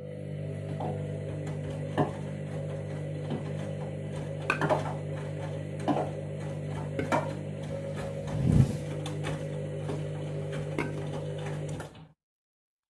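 Candy washing machine's motor turning the drum during the wash: a steady hum with scattered clicks and knocks, one heavier thump, stopping suddenly near the end as the drum pauses between tumbles.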